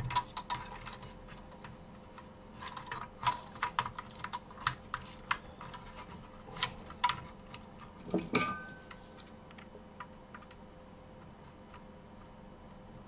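Irregular small clicks and taps of hands and tweezers working on a computer circuit board and its metal shielding, with a louder clatter about eight seconds in. After that the clicks mostly stop, leaving a faint steady hum.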